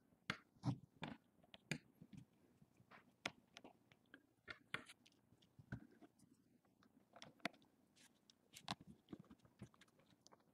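Faint, irregular clicks and ticks of a small Torx screwdriver working tiny screws out of a phone's plastic midframe, with light handling of the phone and screws on a wooden bench.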